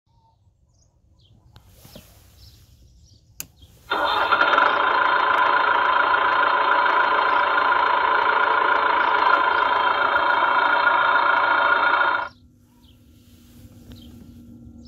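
A children's electric ride-on tractor's built-in MP3 player playing its recorded engine start-up sound through the toy's speaker, the tractor's switch-on sound. It comes in after a click about three and a half seconds in, runs steadily for about eight seconds and cuts off suddenly.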